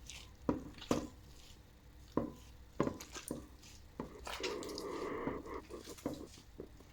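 Hands mixing and mashing a date mixture in a bowl: soft irregular taps and clicks, with a longer squishy rubbing a little past the middle.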